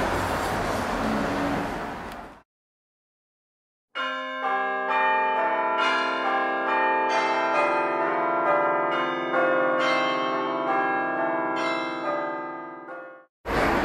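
Room noise fades out, then after a second or so of silence bells ring a run of overlapping struck notes that hang on and die away just before the end.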